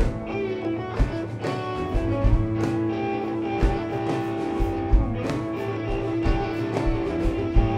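Live rock band playing an instrumental: electric guitars over a full drum kit, with regular kick-drum beats, cymbals and a long held note.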